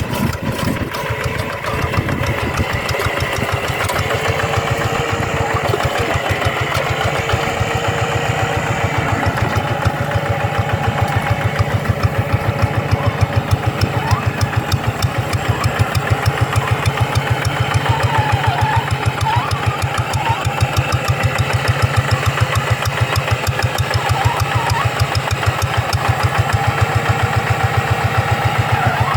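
Single-cylinder diesel engine of a two-wheel hand tractor running steadily under load, an even, rapid firing beat.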